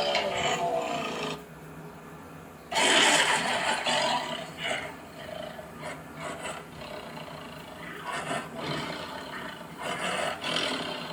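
Big cat roaring and growling. A wavering call trails off in the first second or so, a loud, harsh roar breaks in about three seconds in and fades, and shorter rough growls follow near the end.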